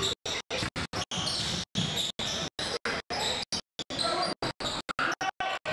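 Basketball game sound in a gym: a ball bouncing on the hardwood court, with voices in the background. The audio cuts out in brief gaps several times a second.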